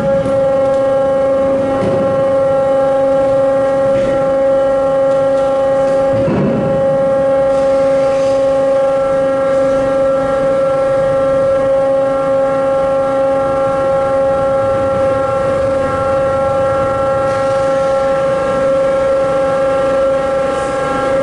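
Car ferry's onboard machinery giving a loud, steady hum on one unchanging pitch with overtones, which cuts off near the end. A few dull knocks sound over it.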